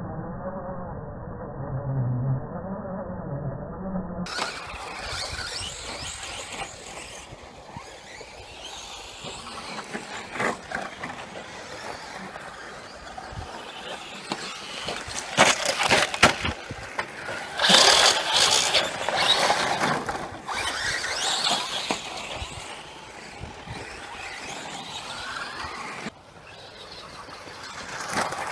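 Brushless electric RC cars racing on a dirt track: high motor whine coming and going as they pass, with tyres scrabbling on dirt and gravel and a few sharp clicks. The loudest pass comes a little past the middle.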